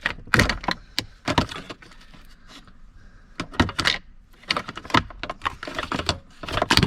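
Irregular metallic clicks, clinks and knocks of hand tools and parts being handled while working at a van battery's terminal connections, coming in small clusters.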